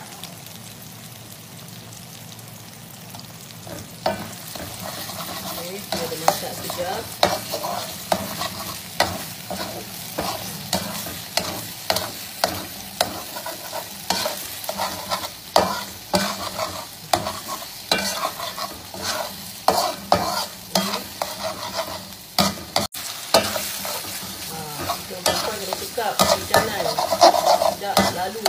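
Chilli paste and tomato purée sizzling in oil in a pan. From about four seconds in, a metal slotted spatula stirs and scrapes the pan in strokes about once a second, coming faster near the end.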